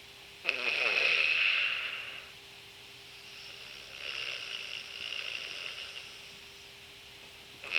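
A person's snoring breaths while lying down. About half a second in comes a harsh, noisy breath in with a brief fluttering rattle that lasts nearly two seconds. A softer breath out follows around four to six seconds, and the next rasping breath in starts near the end.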